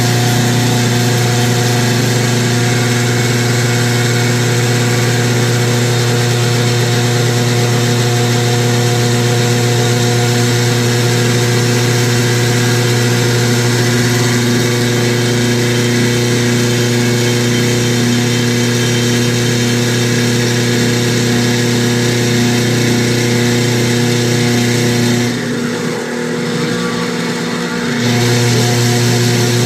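KitchenAid stand mixer motor running at a higher speed with a steady loud hum and a grinding noise. About 25 seconds in the sound sags and falters for a couple of seconds, then picks back up: the mixer losing power and slowing down at higher speed.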